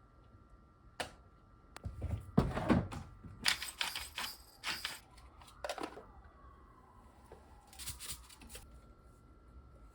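Kitchen handling sounds: a string of knocks and clatters, with a heavier thud about two seconds in and a denser clatter around four to five seconds.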